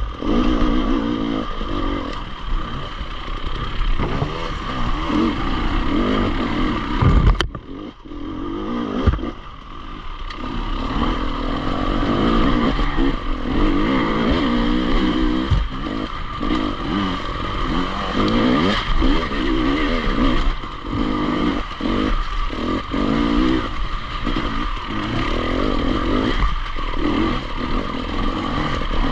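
Enduro motorcycle engine running under way, the throttle rising and easing, with a sharp click and a brief drop in engine sound about a quarter of the way in before it picks up again.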